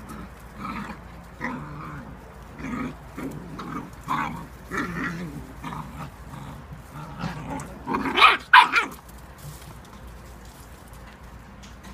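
Eight-week-old whippet puppies growling and barking as they play-fight, a run of short growls and barks with the two loudest, sharpest barks about eight seconds in.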